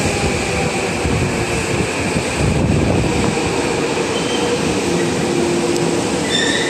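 Subway train pulling into an underground station platform and slowing, a steady rumble of wheels and running gear with faint whining tones. High squealing tones set in near the end as it comes to a stop.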